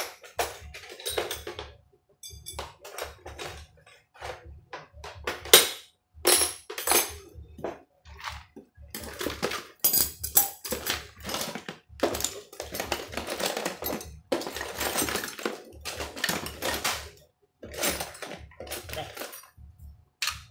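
Metal tools and parts clattering and knocking as someone rummages through them, with irregular clinks and thunks.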